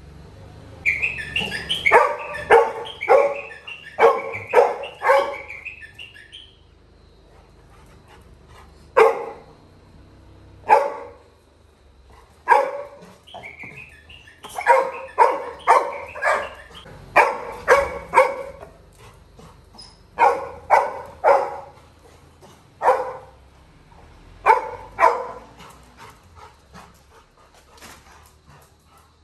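Young Labrador retriever barking in repeated bursts of sharp barks, with a few high whines, at a closed gate: separation distress at being left behind by his companion.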